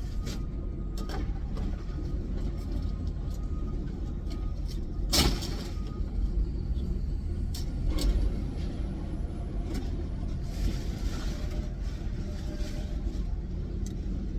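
Steady low rumble of a vehicle engine, with sharp knocks about 5 and 8 seconds in as old tires are pulled out of the vehicle and handled.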